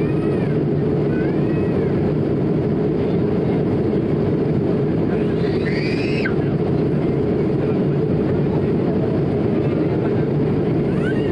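Steady in-flight cabin noise of an Airbus A220-300 from a seat over the wing: the deep, even roar of airflow and its Pratt & Whitney PW1500G geared turbofans. Faint voices come and go, with one brief rising-and-falling voice about six seconds in.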